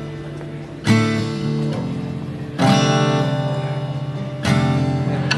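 Background music: guitar chords strummed and left to ring, a new chord about every two seconds, three in all.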